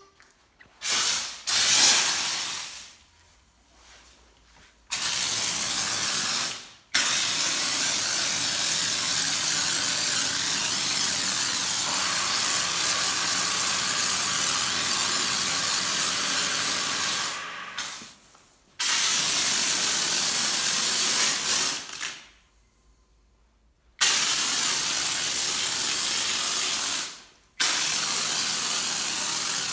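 Pressure washer spraying a steady hissing jet of water in long bursts that start and stop abruptly several times, with short silent gaps between.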